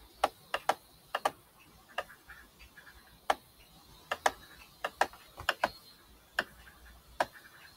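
Computer mouse clicking: a dozen or so sharp clicks at irregular intervals, several in quick pairs, as text boxes are pasted and dragged into place on a form.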